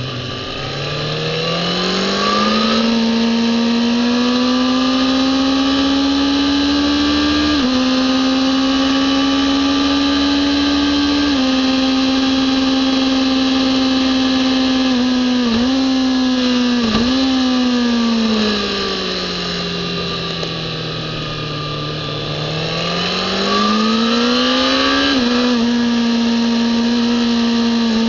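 Kawasaki ZX-10R's inline-four engine at racing speed, with wind rush. The pitch climbs as the bike accelerates hard out of a slow corner and drops sharply twice at quick upshifts. It falls as the throttle is eased about two-thirds of the way through, then climbs again with another upshift near the end.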